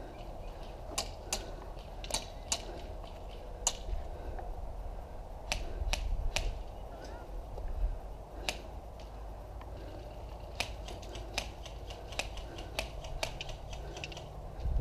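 Scattered sharp cracks of airsoft guns firing around the field, single shots at first and a quicker string of them near the end, over a steady low rumble.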